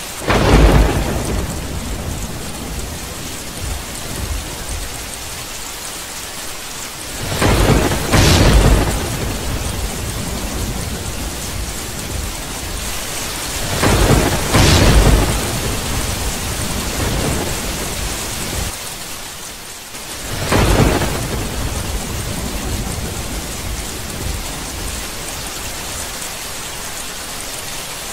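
Steady rain falling with four peals of thunder, spaced about six seconds apart, the first just after the start; each sets in and rolls on for a second or two before sinking back under the rain.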